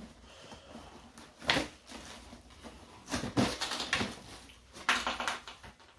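A cardboard product box being handled and shaken: a sharp knock about a second and a half in, then clusters of knocks and rattles around three and five seconds in, from loose broken pieces inside the box.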